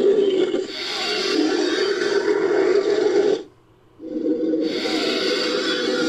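Designed Concavenator dinosaur vocalization sound effect: two long, harsh calls of about three seconds each, separated by a short break.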